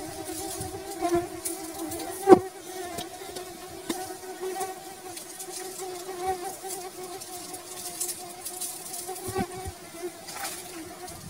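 Honeybees buzzing in a steady hum as their colony is opened for honey. A sharp knock about two seconds in.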